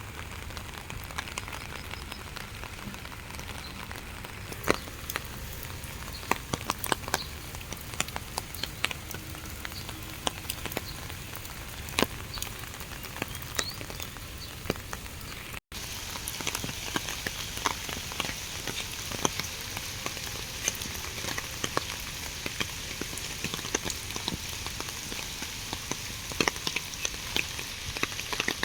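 Steady rain falling, with many separate drops hitting sharply over a constant hiss. About halfway through the sound cuts out for a split second, and after that the hiss is brighter.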